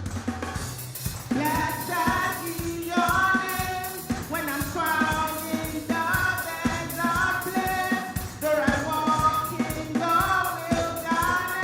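Live gospel worship music: voices singing a praise song over a band with a steady drum beat.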